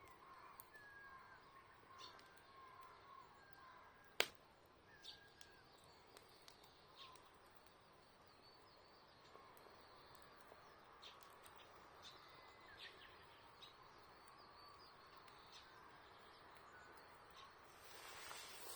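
Faint birds chirping over the sparse crackling of a wood campfire, with one sharp, loud pop about four seconds in. A soft rushing rises near the end.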